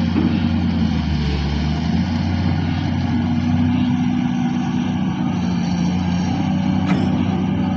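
Komatsu PC200LC excavator's diesel engine running steadily under work, its pitch shifting slightly up and down as it works. A single sharp click sounds about seven seconds in.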